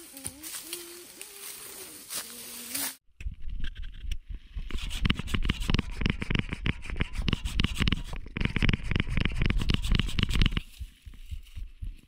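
A hand saw rasping through a dead branch in rapid back-and-forth strokes for several seconds, pausing briefly once and stopping shortly before the end.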